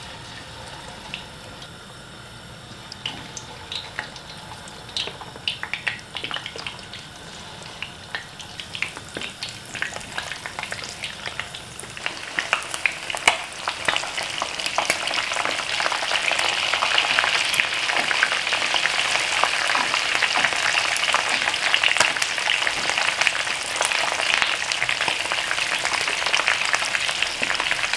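Egg-coated, spice-braised chicken pieces deep-frying in a wok of hot oil. Scattered crackles at first, growing into a dense, louder sizzle about halfway through as more pieces fill the wok.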